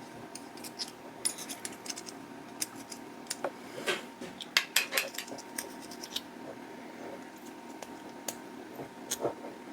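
Metal hand tool picking and scraping debris out of the tapped holes in a steel block: irregular light metallic clicks and scrapes, a few sharper ones in the middle.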